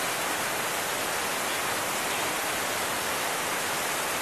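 A steady, even hiss with no distinct clicks, bubbles or knocks, holding the same level throughout.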